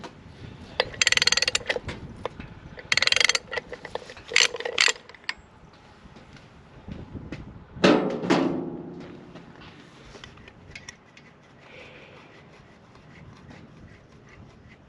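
A ratchet wrench clicking in three short bursts as it turns a 1 5/16-inch socket on the castle nut holding a Corken compressor piston, breaking the tight nut loose. About eight seconds in comes one loud clank that rings briefly, followed by faint light clicks of metal parts being handled.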